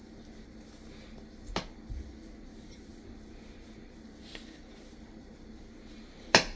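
A chef's knife scoring a ham on a cutting board: quiet slicing with a few sharp knocks of the blade, one about a second and a half in and a louder one near the end.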